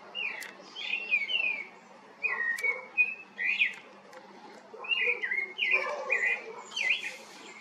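Birds chirping and whistling in several bursts of short, quick calls that slide up and down in pitch.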